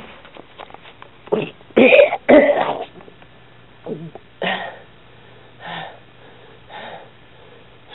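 A person coughing and clearing their throat: a loud cluster of three coughs about a second and a half in, then several weaker coughs spaced a second or so apart.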